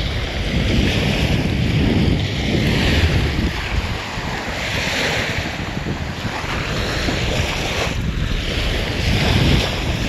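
Small waves washing up and lapping on a sandy shoreline, each wash swelling and fading about every two seconds, with wind buffeting the microphone in a steady low rumble.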